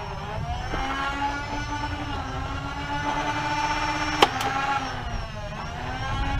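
A steady whine from a small electric motor; its pitch sags and comes back up twice. A single sharp click sounds just past four seconds in.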